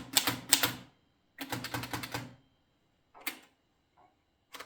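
Seidel & Naumann Erika Model M portable typewriter being typed on in letter-spaced mode: two quick runs of typebar strikes in the first two and a half seconds, then a couple of single strikes.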